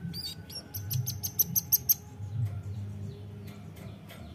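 Velvet-fronted nuthatch calling: a few high notes, then a fast run of about nine sharp, very high chips, roughly eight a second, lasting just over a second.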